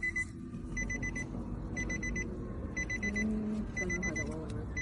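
Electronic beeper sounding short bursts of quick, high-pitched beeps, one burst about every second, in a steady repeating pattern.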